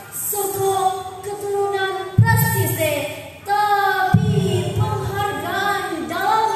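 A girl's solo voice singing a melodic line without accompaniment, in long held notes with ornamented turns, phrase after phrase with short breaths between.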